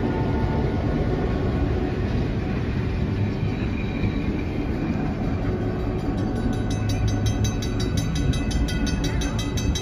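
Diesel-electric locomotive running and rolling slowly past, with a low steady rumble; a horn blast dies away at the very start. About six seconds in, a grade-crossing bell starts ringing, several strikes a second.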